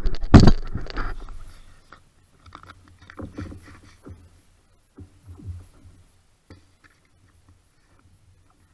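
Scraping and knocking on pond ice and slush, loud for the first second or so, then a few quieter knocks and rustles of handling around an ice-fishing tip-up.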